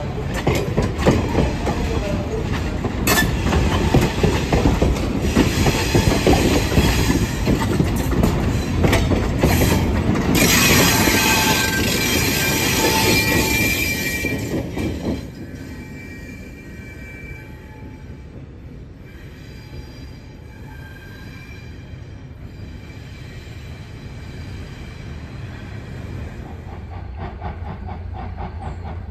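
Passenger coaches rolling past close by, their steel wheels rumbling on the rails with a high wheel squeal building about ten seconds in. The noise drops off sharply around the middle as the last coach passes, leaving a fainter rolling sound of the receding train.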